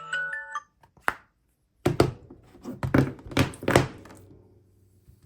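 A smartphone alarm's marimba-like melody stops about half a second in. Then comes a single click, and a second later a series of dull knocks and thuds.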